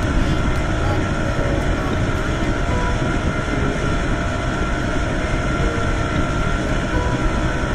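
Small speedboat's motor running steadily under way, with rushing water and wind noise against the hull and camera.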